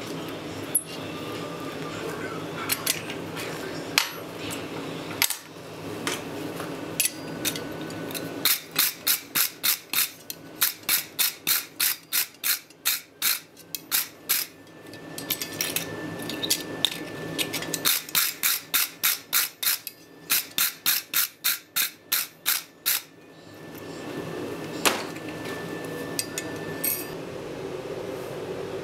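Blacksmith's hand hammer striking a hot steel S-hook on an anvil in two runs of quick, even blows, about three a second, with a few scattered knocks and clinks before them.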